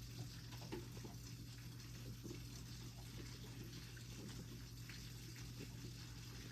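Faint wet sucking sounds of a young goat kid nursing on a milk bottle, a few soft ticks over a steady low hum.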